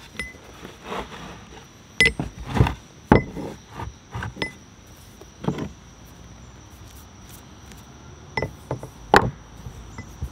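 About ten scattered knocks and clinks of steel on steel as a hammer and chisel work the old wooden handle out of the eye of a rusty sledgehammer head, and the head is handled and set down on a wooden board; a few strikes ring briefly. Crickets trill steadily behind.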